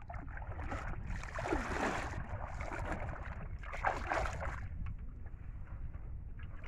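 Shallow water sloshing and splashing as a man wades and scoops shrimp out of a bamboo trap into a wicker basket, in two bursts about a second and a half and four seconds in. A low wind rumble on the microphone runs under it.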